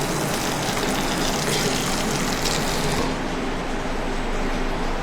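Steady restaurant-kitchen noise: a constant hum with a hiss of food frying on the cooking surface; the hiss thins out about three seconds in.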